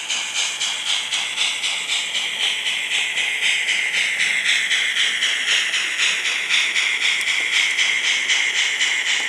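Sound-decoder chuffing from a Modelbex model 141 TA steam tank locomotive: steady exhaust beats at about four a second over a continuous steam hiss, the beats timed to the turning of the wheels.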